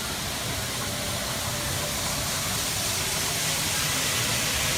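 Steady rushing noise of an N gauge model train running on a rental shop layout, mixed with shop background noise, growing slightly louder near the end.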